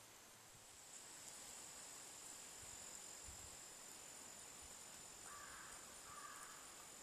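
Faint, steady, high-pitched insect trill that sets in about a second in and holds, with two brief soft sounds near the end.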